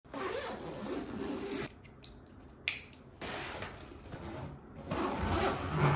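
Suitcase zippers being pulled in three long rasping strokes, with one sharp click between the first and second, about two and a half seconds in.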